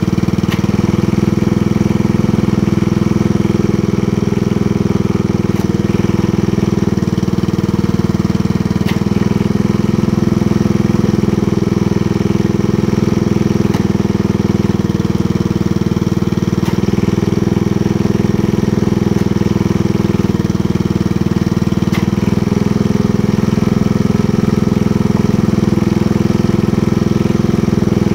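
Honda 10.5-horsepower engine driving a log splitter's hydraulic pump, running steadily; its pitch dips briefly every two to three seconds as the engine takes load while the hydraulic rams work. A few sharp knocks come through now and then.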